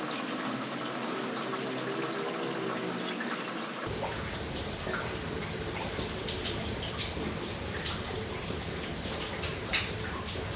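Running water, like a tap, with small splashes and clicks; the sound changes abruptly about four seconds in.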